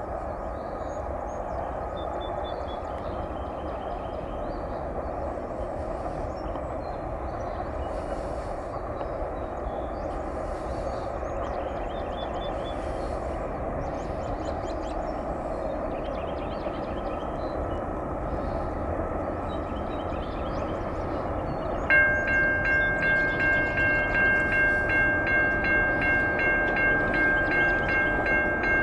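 Approaching freight train's diesel locomotives, a steady rumble that builds slowly. About 22 seconds in, the lead locomotive's air horn comes on suddenly with a multi-note chord and keeps sounding, its loudness pulsing slightly.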